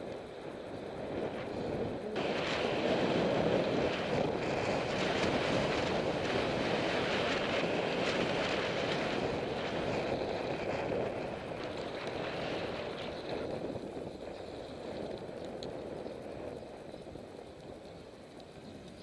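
Wind rushing over the microphone of a camera carried on a moving bicycle. It swells about two seconds in and eases off gradually through the second half.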